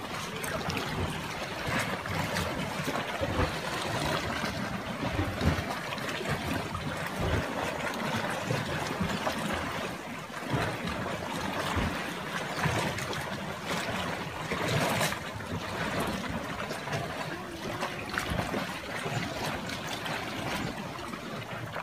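Sea water washing and sloshing against a rocky shoreline: a steady, noisy wash with irregular low rumbles.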